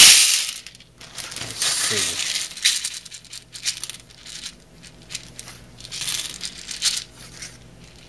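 Dry popcorn kernels poured from a plastic measuring cup into a bowl, a sudden rattling clatter right at the start. Then several seconds of scattered rattles and rustles as the cup is scooped full of kernels again.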